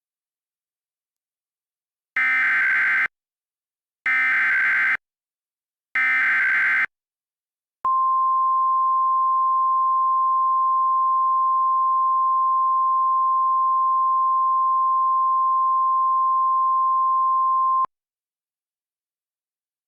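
Three bursts of EAS/SAME digital header data, a harsh warbling data tone about a second long each and a second apart. Then comes the NOAA Weather Radio 1050 Hz warning alarm, a single steady tone held for about ten seconds and cut off sharply. This is the start of a new Emergency Alert System severe thunderstorm warning.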